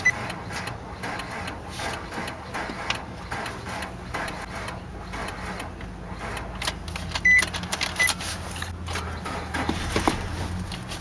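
Car engine turning over on the starter without catching: a steady low whir with irregular clicking, and short high beeps at the start and twice about seven to eight seconds in.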